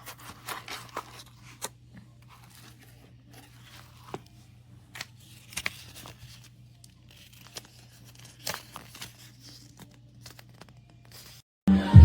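Scattered light clicks and rustles of a label-maker storage case being handled, over a faint steady hum. Music starts abruptly near the end.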